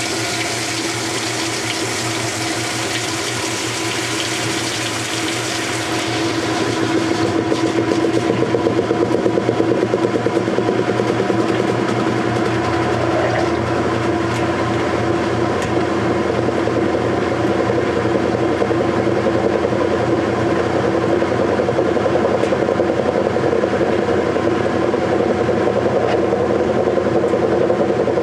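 Whirlpool Direct Drive top-loading washer filling for a rinse with water rushing into the tub. About six seconds in the agitator starts, and the motor and transmission run with a fast, even churning and water sloshing. The machine is running smoothly on a new motor coupler and new agitator dogs.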